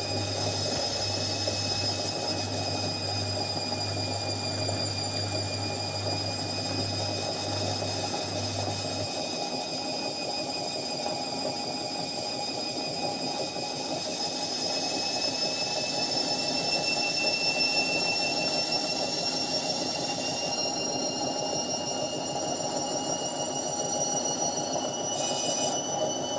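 Indesit 71252 washing machine running with a steady high whine that slowly rises in pitch over a rumbling drum noise, as in a spin. A low hum drops out about a third of the way through.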